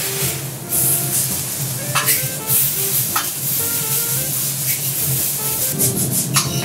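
Garlic fried rice sizzling on a steel teppanyaki griddle while a spatula and fork scrape and clink against the hot plate, a few sharp strokes standing out, with background music playing.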